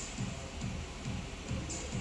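Electronic music with a steady kick-drum beat, about two and a half beats a second, and a cymbal crash near the end.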